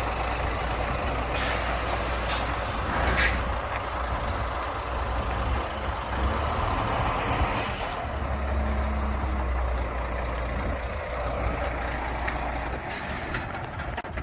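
Renault construction truck's diesel engine idling steadily, with several short hisses of released compressed air from its air brake system.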